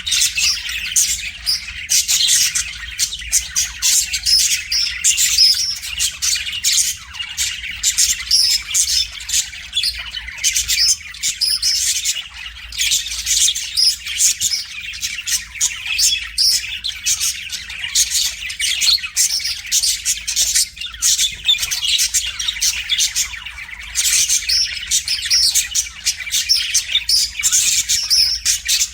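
A budgerigar singing: a long, fast, chattering warble of chirps and squeaks that runs almost without pause.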